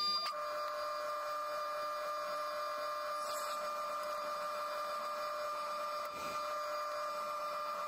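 A 1941 Bridgeport milling machine's spindle running steadily, with a constant whine, as a twist drill bores into the center of a square bar.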